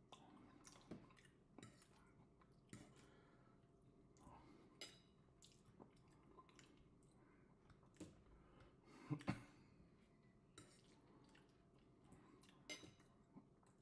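Faint, wet mouth sounds of a man chewing mouthfuls of lamb vindaloo, with scattered soft clicks. The loudest is a pair of clicks about nine seconds in.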